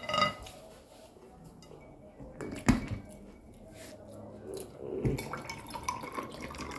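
A metal fork clinks against a glass plate with a short ringing note right at the start. A sharp tap comes near the middle and a softer knock about five seconds in, with quiet chewing between.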